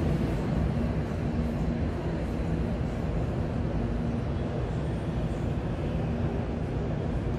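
Steady low rumble of an electric commuter train running nearby in the station, with a faint steady hum.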